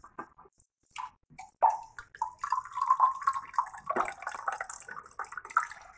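Water running from a plastic tap and splashing over a hand, starting about one and a half seconds in after a few short knocks.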